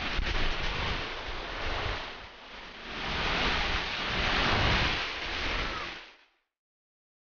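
Vehicles driving through deep floodwater, their tyres throwing up a rushing wash of spray. One pass comes first, then a louder one from a second vehicle about three seconds in. The sound cuts off abruptly near the end.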